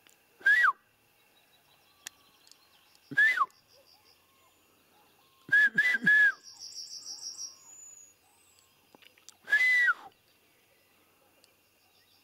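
Roe deer buck barking: short, loud, harsh barks, each with a falling whistle-like tone. They come one at a time, then three in quick succession in the middle, with a songbird trilling briefly after them.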